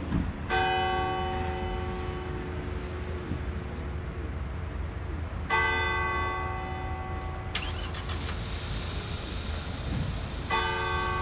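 A bell of the Basilica of Our Lady of Bon-Secours tolling slowly for a funeral: three strokes about five seconds apart, each left ringing. Between the second and third strokes a car is briefly heard, over a steady low rumble.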